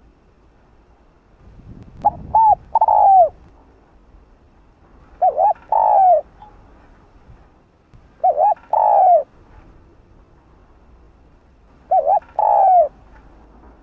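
Spotted dove cooing: four phrases a few seconds apart, each two short notes followed by a longer note that falls in pitch.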